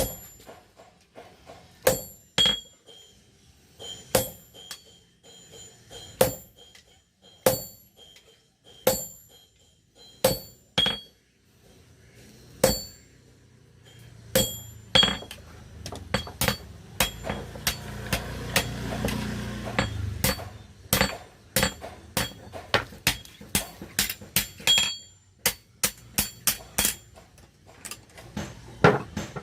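Hammer striking metal during knife handle fitting: single ringing blows a second or two apart, then a run of quicker, closer strikes in the second half. A rumbling, noisy sound swells and fades about midway.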